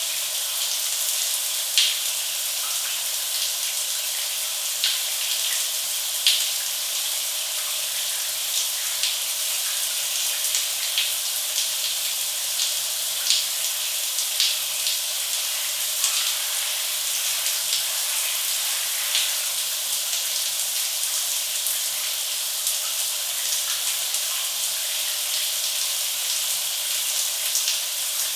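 Shower running: a steady hiss of water spraying from the shower head, with scattered sharper splashes of drops striking a hard surface.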